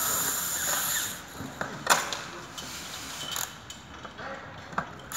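Cordless drill-driver running steadily, driving a screw into an office chair's seat mechanism, stopping about a second in. Then a few sharp clicks and knocks, the loudest about two seconds in.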